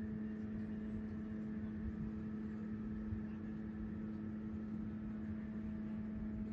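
Snowy city street ambience: a steady mechanical hum over a low, uneven rumble of street noise.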